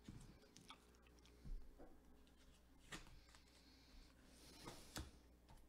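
Near silence: room tone with a few faint clicks and rustles.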